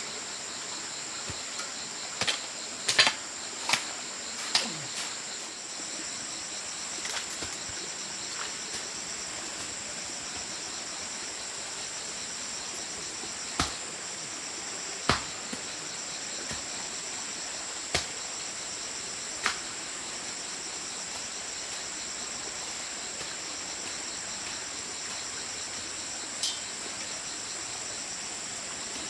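A steady, high-pitched chorus of insects, crickets or cicadas, with a fast pulsing strand in it. Over it come scattered sharp knocks or taps: several in the first few seconds, then a handful of single ones spread out.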